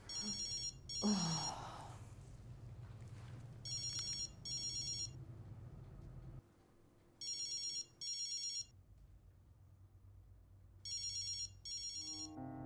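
LG flip phone ringing with an incoming call: pairs of short, high electronic trills, the pair repeating about every three and a half seconds. Soft music comes in near the end.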